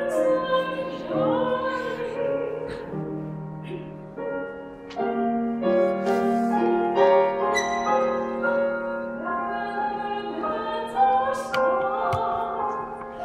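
A woman singing in a classical, operatic style, holding long notes with vibrato, accompanied by a grand piano.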